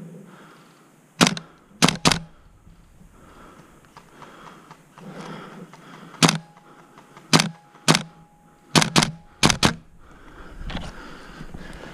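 Airsoft gun firing single shots: about ten sharp cracks, several in quick pairs, over light rustling.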